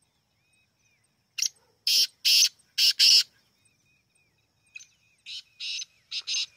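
Black francolin calling: a loud run of five short, harsh notes starting about a second and a half in, then a fainter run of similar notes near the end.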